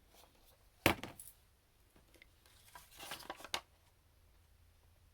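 Plastic packaging being handled: a sharp click about a second in, then a short stretch of crinkling and clicking around three seconds in.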